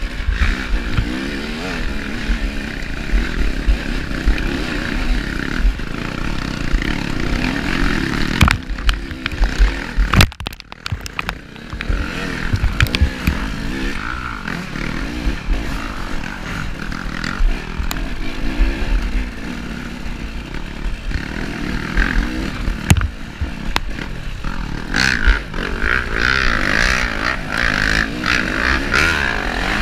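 Dirt bike engine revving up and down as the bike is ridden through slippery mud and ruts, with scattered knocks and scrapes. The engine dips briefly about ten seconds in.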